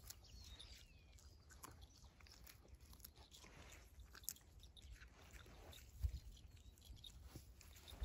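Faint crunching and rustling from a dog rooting with its muzzle in short grass, with scattered small clicks and a soft low thump about six seconds in.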